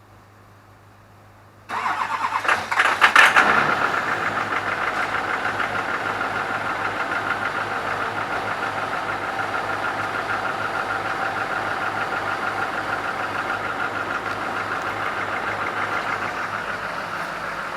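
Stock LB7 Duramax 6.6-litre V8 turbodiesel cold-starting at −2 °F: a moment of cranking about two seconds in, then the engine fires, loudest as it catches, and settles into a steady idle. The owner suspects one or two bad glow plugs.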